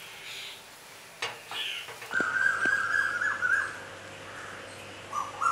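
Metal spatula clicking and scraping against a dosa griddle as a buttered sandwich is turned over. A high, whistle-like tone is the loudest sound; it runs for about a second and a half near the middle, and a shorter one comes near the end.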